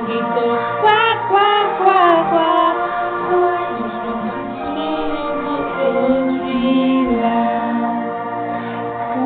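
Music playing: a woman singing over steady instrument tones.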